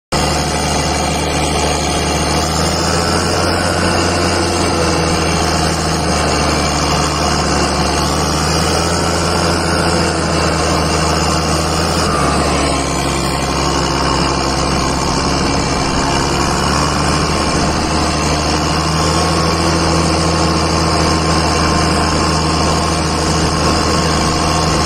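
Fendt 916 tractor's six-cylinder diesel engine running steadily, heard close to its exhaust stack, with a faint whine that wavers gently in pitch.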